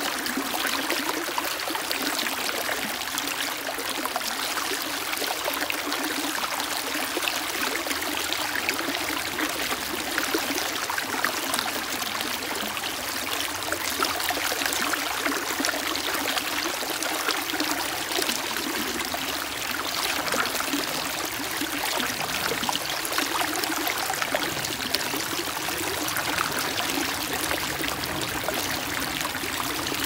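Shallow stream running fast over and between rocks: a steady, unbroken rush of water.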